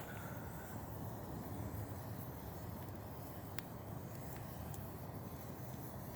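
Open campfire burning under a hanging cooking pot, with an occasional sharp pop, about three and a half seconds in, over a steady low rumble.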